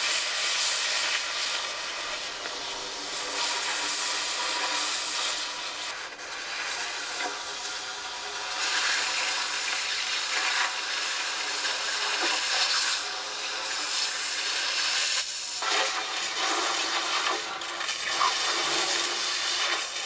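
Oxy-fuel cutting torch hissing steadily as it cuts through square steel tubing, the jet blowing molten steel and sparks out of the kerf. The hiss dips out once, briefly, about three-quarters through.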